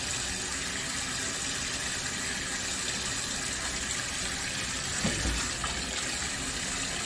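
Kitchen tap running steadily, water splashing over an onion held under the stream and into a metal bowl in the sink. A brief low knock about five seconds in.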